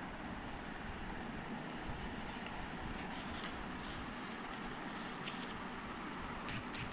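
Paper booklet pages rustling and crackling in short, scattered rustles as the booklet is handled and a page is turned, over a steady background hiss.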